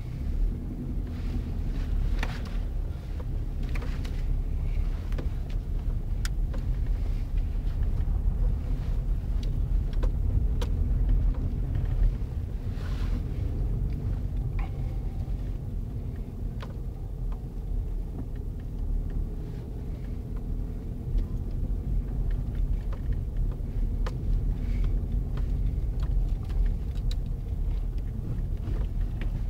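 Low, steady rumble of a car driving slowly on snow-covered ground, heard from inside the cabin, with scattered short clicks and crackles over it.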